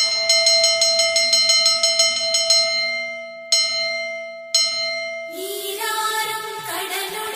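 A metal bell struck quickly over and over, about six strikes a second, then struck twice more singly about a second apart, each stroke left ringing. Shortly after the second single strike, the music of a song comes in.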